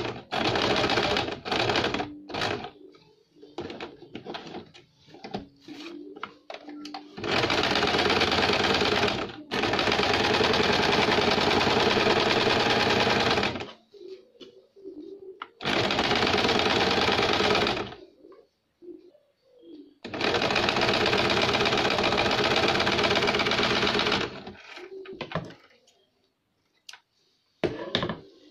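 Small portable sewing machine stitching fabric in runs of a few seconds, stopping and starting again between runs while the fabric is repositioned, with light handling noises in the pauses.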